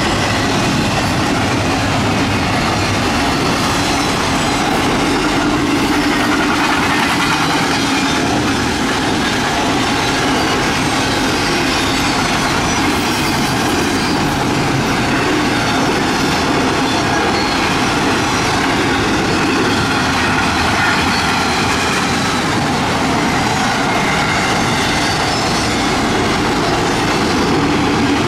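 Intermodal freight train of double-stacked containers and trailers passing at speed: a steady, loud rolling noise of steel wheels on the rails and rattling cars, unchanging throughout.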